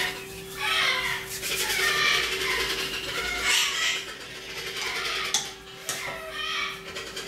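Parrots calling in a string of short, harsh, repeated squawks and screeches, with a steady hum underneath.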